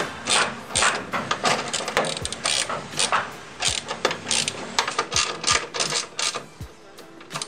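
Hand socket ratchet clicking in short runs of strokes, a few clicks a second with brief pauses, as the bolts of a rear camber kit are run in and tightened.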